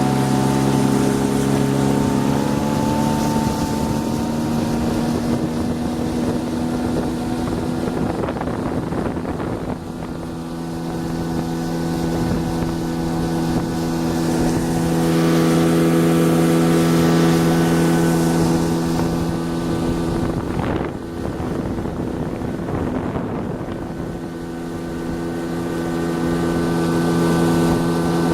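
Hidea 9.9 outboard motor running under way during its break-in. Its note drops slightly about two seconds in, then holds steady.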